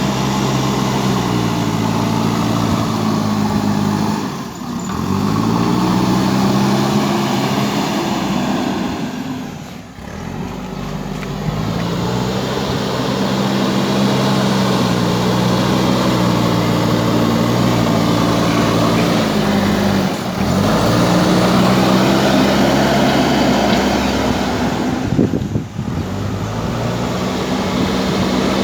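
JCB 3DX backhoe loader's diesel engine running under load while pushing soil. Its note dips and climbs back up several times.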